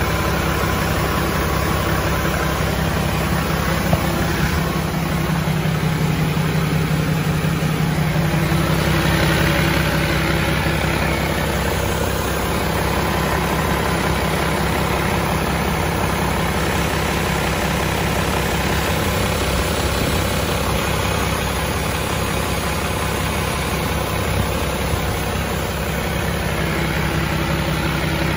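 Hino Profia FR1EXB heavy truck's diesel engine idling steadily, with an even low hum.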